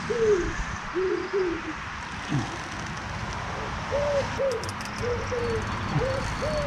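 A pigeon cooing: short low coos in repeated phrases of about three notes then two, with a pause of a couple of seconds partway through.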